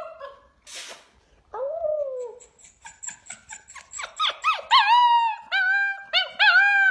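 Dog whining eagerly in high-pitched whines whose pitch bends up and down. There is one long falling whine about two seconds in, then from about four seconds a quick run of rising-and-falling whines, two or three a second.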